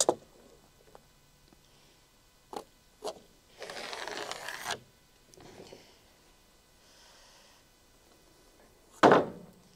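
Boards being handled on a wooden trailer deck: two light knocks, then a board sliding and scraping across the plywood panel for about a second, and near the end a louder knock as a board is set down.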